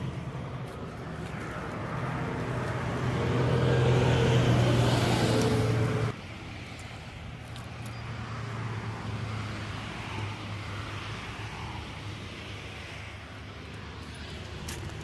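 Car on the road: a steady engine and road drone that grows louder for a few seconds, drops abruptly about six seconds in, then carries on quieter.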